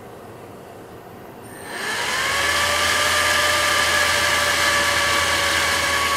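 CPU cooler fan spinning up: a low hum gives way, about two seconds in, to a rising whine that levels off into a loud, steady whirr with a constant pitch.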